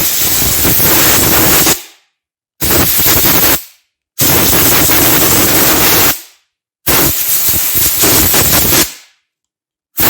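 Compressed air blown in bursts of one to two seconds through a snowmobile throttle-safety microswitch to clear it, each burst a loud rush that starts and stops sharply, about four and a half bursts with short gaps.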